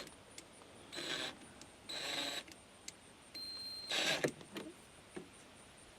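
A screw being driven into a speaker mount in several short mechanical spurts, with a brief steady whine before the last one and a few small clicks afterwards.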